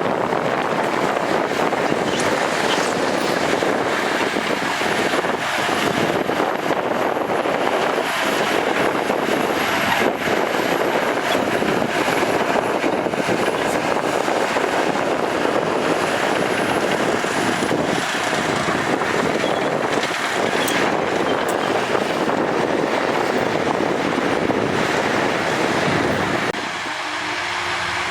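Bulldozer's diesel engine running hard with the rumble and clatter of heavy earthmoving work. The noise is loud and steady, and near the end it thins a little and a steady low engine hum comes through.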